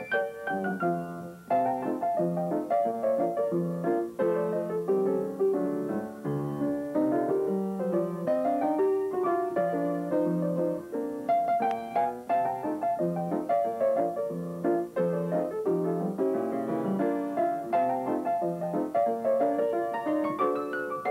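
Background piano music, a steady stream of quick, evenly paced notes over a repeating bass note.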